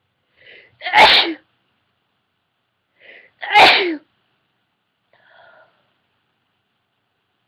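A woman sneezing twice, about two and a half seconds apart, each loud sneeze preceded by a short catching in-breath; the sneezes are induced by sniffing white and black pepper.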